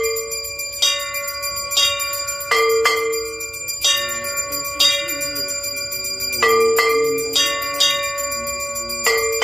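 Bells rung for an aarti in repeated strikes, roughly once a second and sometimes in quick pairs. Each strike rings on in several steady overlapping tones.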